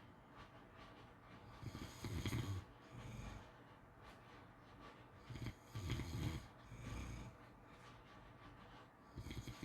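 Pit bull snoring in its sleep: three snores about four seconds apart, each followed by a softer breath.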